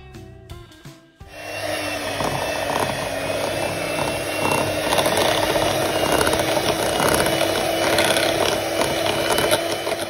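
Electric hand mixer switched on about a second in and running steadily, its twin beaters whipping cream cheese into egg yolks and sugar for a cheesecake filling. Light guitar music plays before it starts.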